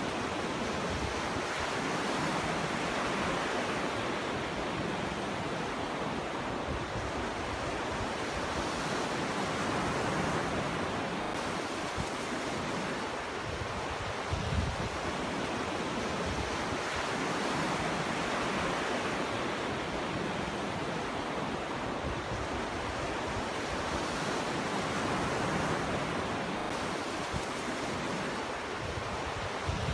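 Ocean waves breaking and washing up a beach in a continuous rushing surf that swells and eases every several seconds, with a few brief low rumbles of wind on the microphone.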